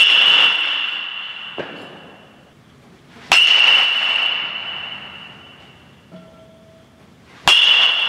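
Metal baseball bat hitting a baseball three times, about four seconds apart, each hit a sharp crack followed by a high ringing ping that fades over about two seconds. Fainter knocks fall between the hits.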